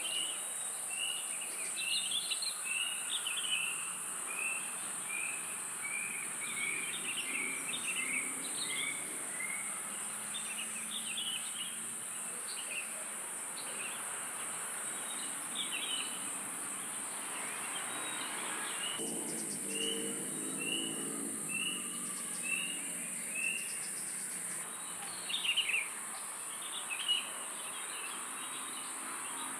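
Nature ambience: a steady high-pitched insect drone runs throughout, with birds calling over it. One bird repeats a series of short, evenly spaced notes for about nine seconds at the start and again about two-thirds of the way in, among scattered other chirps.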